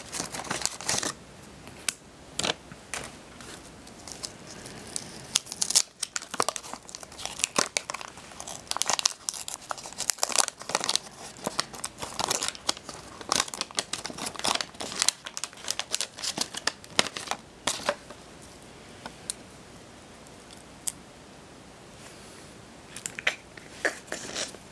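Wax-paper wrapper of a Topps Garbage Pail Kids Series 1 trading-card pack being torn open and crinkled by hand, a dense run of crackles and tears. It goes quieter about three-quarters of the way through, apart from two brief rustles near the end.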